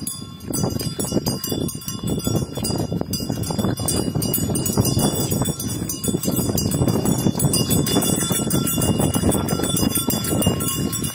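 A pair of Ongole bulls trotting on a paved road while pulling a cart: a steady run of hoof clops with bells jingling and the cart rolling along.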